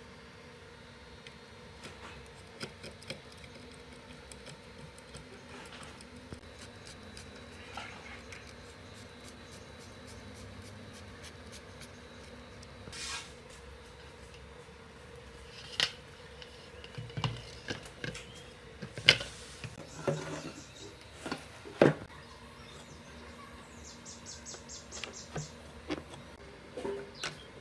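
Hand assembly of a fountain aerator pump: light ticks and scrapes of a screwdriver on the plastic intake strainer's screws, then, about halfway through, a run of sharp knocks and clacks as plastic and metal parts are fitted together. A faint steady hum sits underneath.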